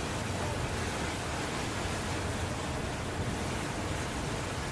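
Steady rushing of wind and water spray aboard a patrol boat running at speed, with a low rumble underneath.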